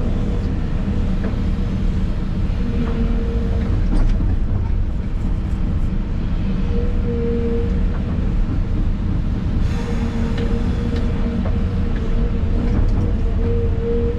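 Excavator's diesel engine running steadily under load, heard inside the cab, with a hydraulic whine that comes and goes as the machine works. A few short knocks and scrapes, the sharpest about four seconds in and around ten seconds, from the bucket working in rocky material.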